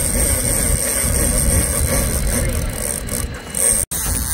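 Fishing boat's engines running with a steady low rumble, broken by a brief cut-out near the end.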